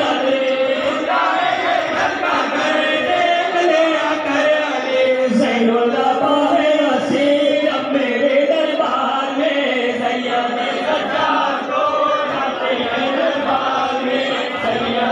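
Many men's voices chanting a nauha, a Shia mourning elegy, together in one continuous unbroken chant.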